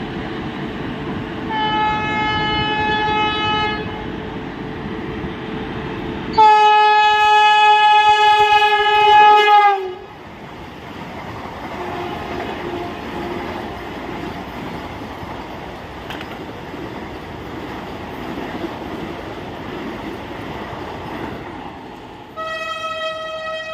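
Electric train horns sounding over the running noise of trains. There is a short blast about two seconds in, and a longer, louder blast from about six to ten seconds that sags slightly in pitch as it ends. Then comes the rumble of a Vande Bharat train set running past, and another horn blast near the end.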